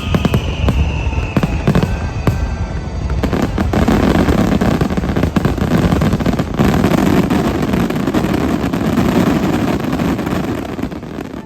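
Fireworks going off: sharp bangs and crackles over the tail of show music for the first three seconds or so, then a dense, continuous barrage without a break.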